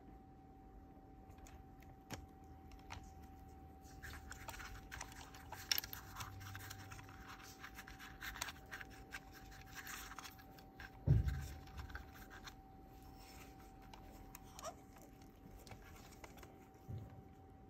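Faint handling noises: gloved fingers scratching and rubbing on wires and a circuit board, with scattered small clicks and one dull thump about eleven seconds in. A faint steady whine runs underneath.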